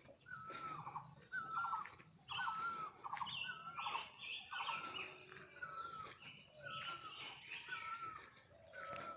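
Wild birds chirping: a short call, a bent whistle ending in a quick rattle, repeated about once a second, with higher chirps from another bird in between.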